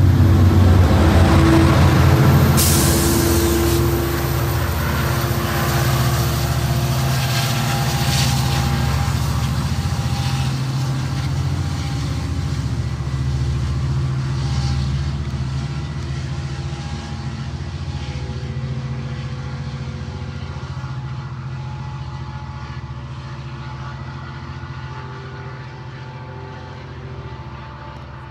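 Metrolink commuter train pulling away, its diesel locomotive under load giving a steady low engine drone mixed with wheel and rail noise, fading as the train recedes. A sharp hiss or clank about two and a half seconds in.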